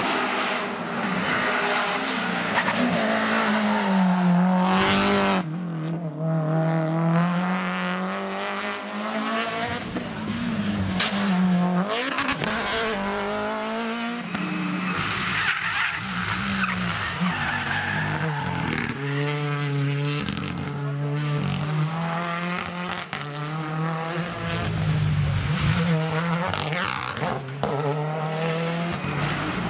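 Rally cars, Renault Clios among them, passing one after another at full throttle, their engines rising in pitch through each gear and dropping on the shifts and braking. Several sharp cracks ring out from the exhausts along the way, the loudest about five seconds in.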